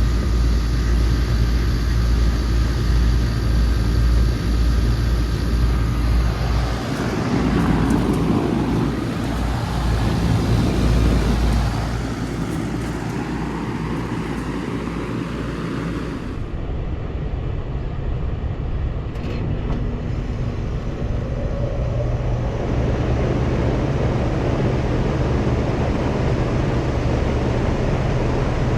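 Bard wall-mount air conditioning units running in cooling mode, a steady low hum of compressor and condenser fan with fan-air noise. The sound changes abruptly about two-thirds of the way through and turns duller, then grows louder a few seconds later.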